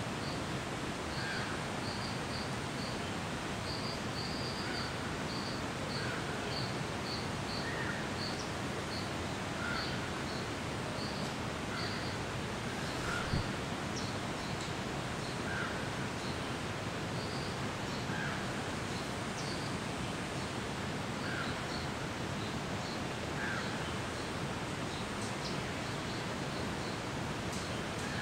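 Outdoor ambience: a steady hiss with short high chirps repeating every second or so and a lower call about every two seconds, from birds or insects. One dull thump about halfway through.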